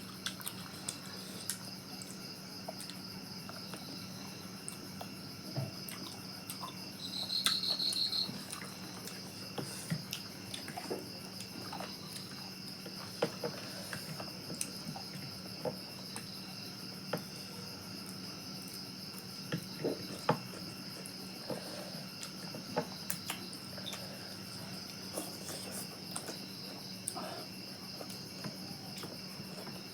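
Crickets chirping steadily, with one louder trill about seven seconds in, over scattered small clicks.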